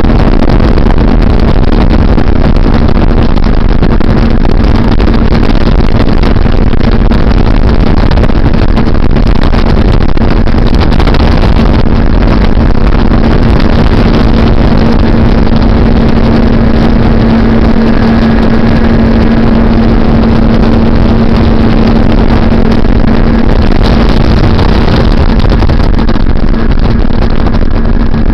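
Bass boat under way at speed: the outboard motor's steady drone, holding one even pitch, under a loud, dense rush of wind and water.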